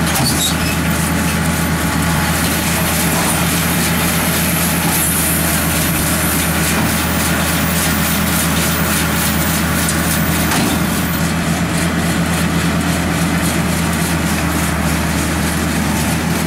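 A vehicle engine running steadily at a constant speed, a deep even hum with a noisy rattle over it.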